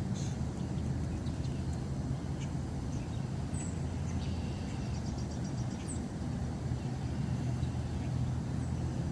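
Steady low rumble of distant road traffic, with small birds chirping and trilling faintly over it.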